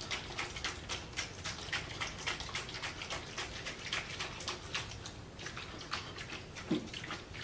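Small lead-acid ATV battery shaken by hand, the acid and freshly added Epsom salt solution sloshing inside its cells in quick, irregular splashes and clicks.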